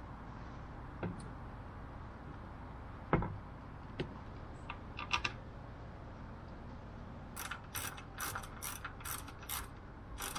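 A few scattered knocks as the outboard's lower unit is pushed into place on the midsection. About seven seconds in, a hand ratchet wrench starts clicking steadily, about three clicks a second, as it runs in a gearcase mounting bolt.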